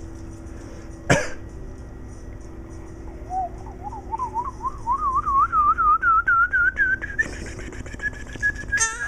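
A warbling whistle that climbs slowly in pitch over about four seconds, then holds one high note. A single sharp knock about a second in.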